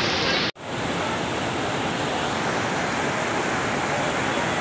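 A torrent of muddy floodwater rushing and churning, a steady even rushing noise. About half a second in, crowd voices cut off abruptly at an edit before the water sound takes over.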